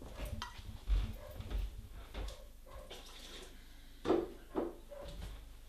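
Faint liquid sounds from a large pot of chopped vegetables, tinned tomato and stock heating on the hob, with a few brief louder sounds about a second in and again around four seconds.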